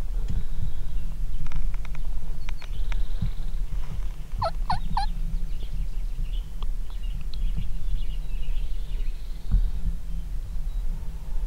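Wild turkey gobbling once, a quick rattling run of notes about four seconds in. A steady low rumble runs underneath.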